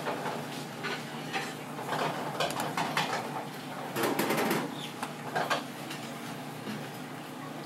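A kitchen knife scraping scales off a grouper's skin on a cutting board: a run of short, irregular scrapes, the loudest cluster about four seconds in.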